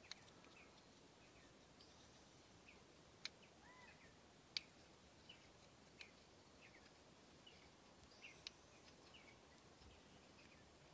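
Near silence: faint outdoor ambience with distant birds chirping now and then and a handful of small sharp clicks.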